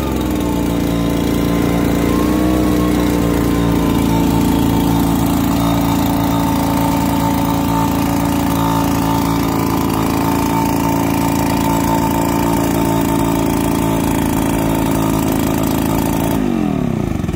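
Two-stroke backpack leaf blower engine idling steadily. Its pitch falls near the end as the engine slows down.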